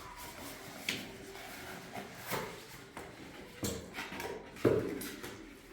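A few scattered knocks and clicks of things being handled, the loudest about three-quarters of the way through.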